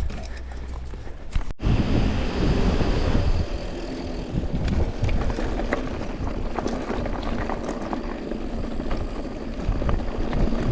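Mountain bike riding on a dirt trail: wind rumble on the riding camera's microphone and tyre noise, with scattered clicks and rattles from the bike. The sound cuts out abruptly for an instant about a second and a half in.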